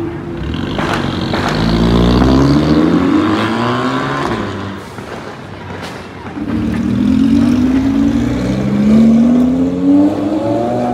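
A car engine revving hard under acceleration, its pitch climbing in two long pulls with a dip around the middle.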